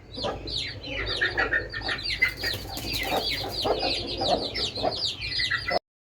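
Newly hatched chicks peeping constantly in quick, high, falling notes, with an Aseel hen clucking lower among them. The sound cuts off suddenly near the end.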